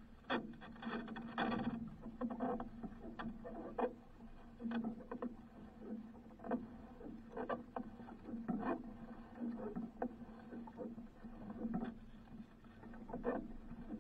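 Handline being hauled in by hand and wound onto a plastic spool aboard a wooden outrigger canoe: irregular knocks and taps of line, spool and hands against the hull, with a low steady hum underneath.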